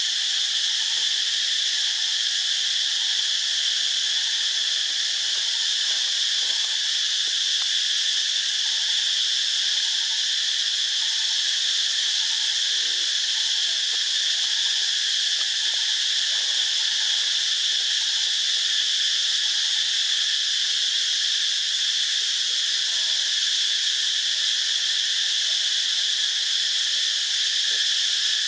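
Insect chorus outdoors in vegetation: a steady, unbroken high-pitched drone that does not change.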